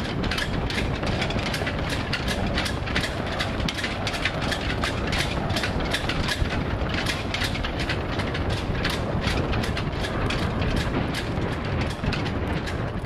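Steady low rumble of a vehicle in motion, overlaid with a rapid, irregular clatter of rattling clicks.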